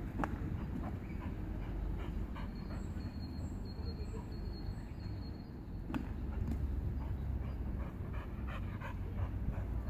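American Staffordshire terrier panting hard as it runs and jumps at a balloon, over a steady low rumble, with a couple of sharp knocks just after the start and about six seconds in.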